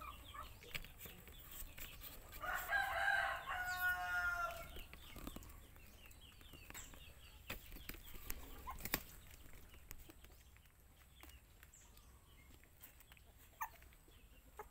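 A rooster crows once, about two seconds in, for roughly two seconds, the call breaking up into short steps at its end; faint scattered clicks follow.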